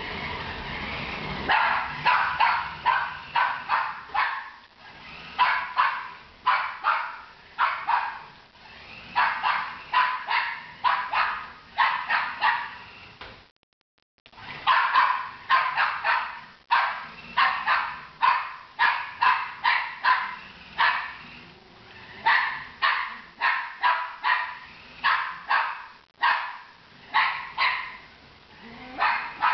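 Jack Russell terrier barking rapidly and repeatedly in quick strings of sharp barks, agitated by a remote-control toy car. The barking breaks off for under a second about halfway, then carries on.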